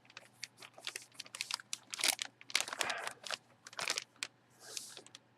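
Plastic packaging crinkling and rustling in irregular bursts as an autographed hockey jersey is handled and unwrapped, busiest midway, with a softer swish near the end.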